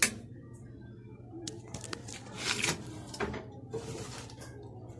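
Cup sealer machine being worked while sealing a plastic cup with film: a sharp click at the start, then a few scattered clunks and rustles in the middle, over a steady low hum.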